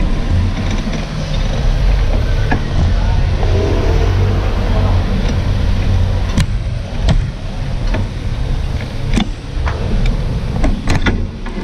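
Steady low rumble of street traffic with scooters passing, and a few sharp clicks in the second half.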